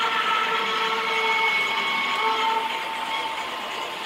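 Model trains running on a layout: motors and wheels making several held whining tones that shift and overlap, over a steady rolling rattle of wheels on the track.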